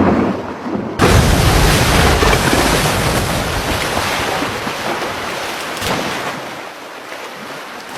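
A wave driven by killer whales washing over an ice floe: a loud rush of surging water that jumps up suddenly about a second in and slowly dies away.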